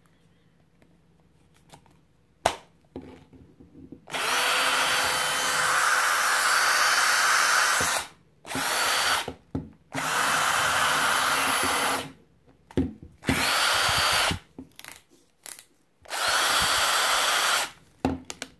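Retrofitted DeWALT DW920 right-angle cordless drill/driver motor running off a Milwaukee M12 lithium battery, switched on and off in a series of trigger pulls: a run of about four seconds, then several shorter runs of one to two seconds, each spinning up to a steady whine. A sharp click comes before the first run.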